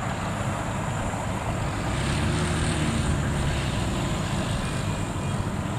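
Rice combine harvester's diesel engine running steadily as the machine cuts and threshes standing rice, a continuous low drone with machinery hiss.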